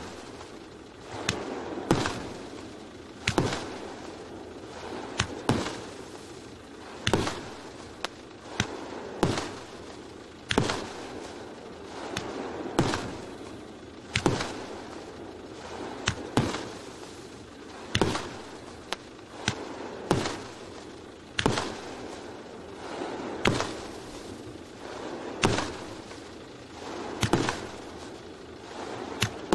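Multi-shot firework cake (salute battery) firing shot after shot, a sharp bang roughly once a second with hissing between the reports.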